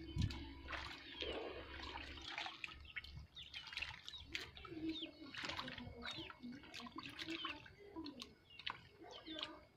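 Water splashing and trickling in a shallow frog-rearing tank crowded with frogs, with many short high chirps and lower wavering calls throughout.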